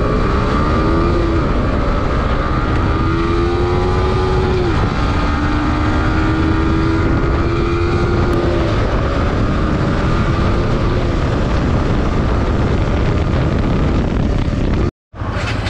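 Yamaha R15's single-cylinder engine accelerating hard through the gears. Its pitch climbs and drops back at each upshift, over wind rushing past the microphone. The sound cuts out for a moment near the end.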